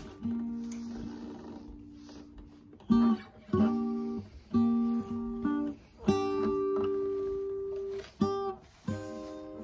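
Acoustic guitar played slowly: chords strummed and left to ring out and fade, a few quicker strums in the middle, then longer sustained chords.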